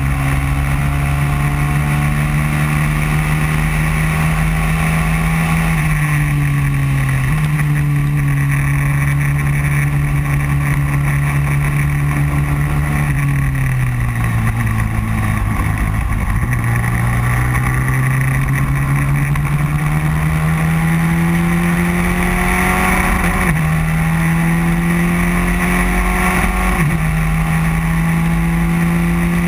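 Racing kart engine running hard at high revs, heard from onboard: the engine note eases down, dips lower about halfway through as the kart slows for a corner, then climbs back up, with a few small sudden jumps in pitch. Wind buffets the onboard microphone underneath.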